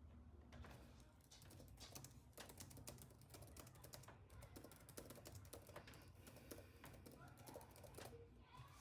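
Faint typing on a computer keyboard: a quick, irregular run of key clicks that starts about half a second in and stops near the end.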